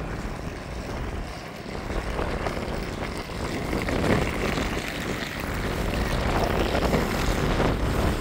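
Steady low rumble of vehicles, with no single distinct event.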